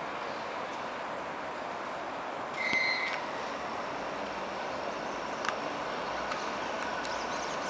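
Steady railway-platform noise as an ED4M electric train approaches from a distance, with one short high-pitched tone about two and a half seconds in.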